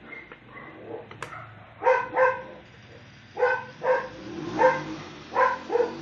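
A dog barking repeatedly: about seven short barks, several in quick pairs, starting about two seconds in.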